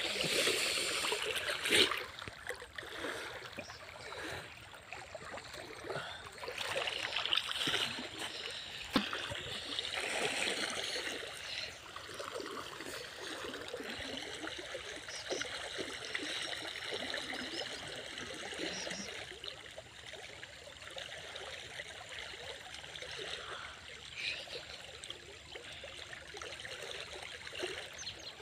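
Stream water splashing and churning as a person wades and swims through it, with louder splashes in the first couple of seconds and again about ten seconds in, then steadier running water.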